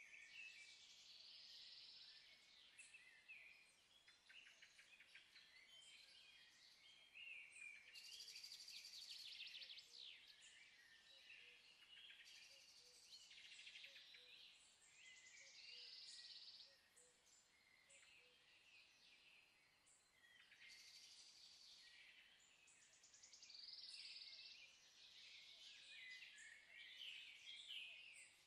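Faint birdsong: a steady mix of high chirps and quick trills from several birds, coming and going.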